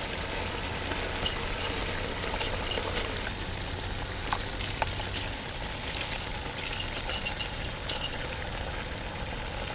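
Chicken sizzling and bubbling in an aluminium pot on the fire, with scattered small crackles over a steady low rumble.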